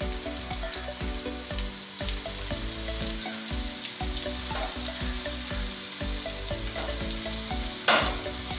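Masoor dal pakora batter deep-frying in hot oil in a wok: a steady sizzle with small crackles as more batter is dropped in. A single sharp knock near the end.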